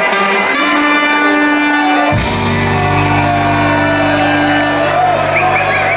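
Live ska band with a horn section of trumpet, saxophone and trombone holding long notes over guitar and keyboard. About two seconds in, a cymbal crash and a deep held bass note come in and sustain.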